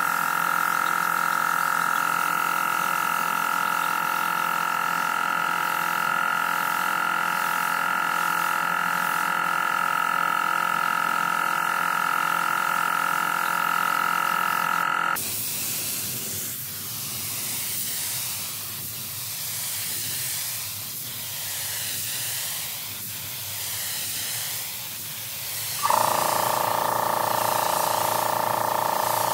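Compressed-air paint spray gun hissing while spraying. The first half has a steady whistling tone over the hiss. About halfway it changes abruptly to a rougher hiss that swells and fades about every two seconds, and the steady whistle returns suddenly near the end.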